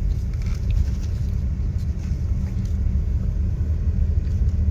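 Steady low rumble of a car running, with a few faint rustles and ticks as the cardboard chicken-nugget box is handled.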